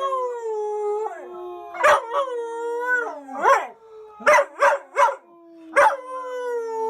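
Blue heeler (Australian cattle dog) howling: long, wavering cries broken by about six short yelps, several of them in quick succession around the middle.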